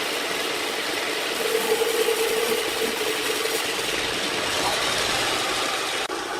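Sawmill machinery running steadily, with a steady whine for about two seconds; the sound changes abruptly near the end.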